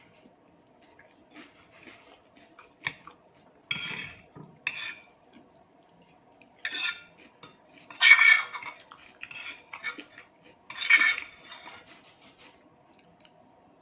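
A fork clinking and scraping against a plate or bowl of salad in a handful of short, separate bursts, the loudest about eight and eleven seconds in.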